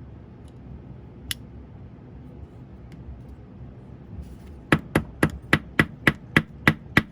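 A small Chris Reeve Sebenza 21 folding knife being worked after a pivot adjustment: one sharp click, then a few seconds later a fast, even run of sharp clicks, about three a second.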